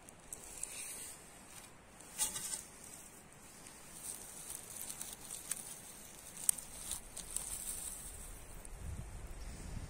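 Dry grass and forest litter rustling and crackling as a hand reaches in and grips a porcino mushroom, with a cluster of crackles about two seconds in, over a faint steady high insect chirring. Wind starts rumbling on the microphone near the end.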